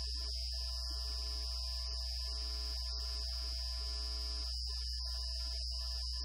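Steady low electrical mains hum with a constant high-pitched whine above it, and faint tones that come and go.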